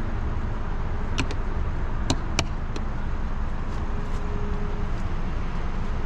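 Steady low outdoor rumble, with a few sharp clicks between one and three seconds in.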